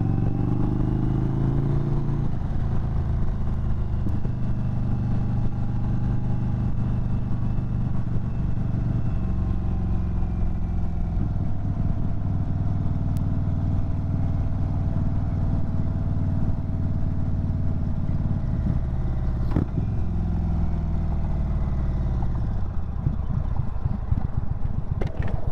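2022 Indian Chief Bobber Dark Horse's V-twin engine running while being ridden. Its pitch rises in the first two seconds, holds steady at cruising speed, then falls near the end as the bike slows.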